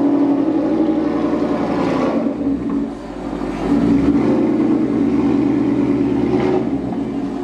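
Ford Mustang GT's 5.0 V8 engine running, dropping in level about three seconds in and picking up again a second later.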